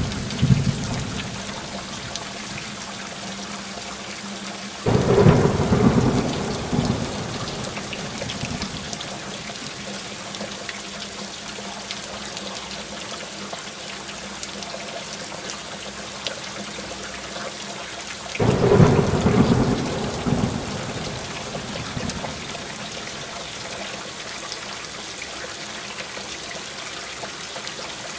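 Steady rain in a thunderstorm. Thunder breaks suddenly about five seconds in and again after about eighteen seconds, each peal rumbling away over a few seconds, with the fading end of an earlier rumble at the start.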